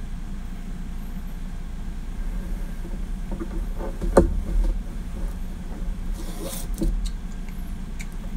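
Steady low background hum, with one sharp knock about four seconds in and a few faint short sounds around it.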